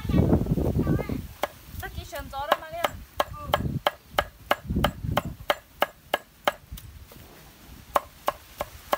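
Knife chopping vegetables on a cutting board, steady strokes about three a second, with a short pause about seven seconds in.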